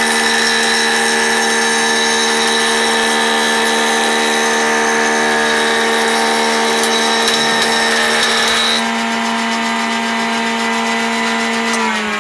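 Jointer running with a steady motor hum while its spinning cutter head planes the edge of a board, a loud rasping hiss, until about nine seconds in; the machine then runs free, and right at the end its pitch begins to fall as it spins down.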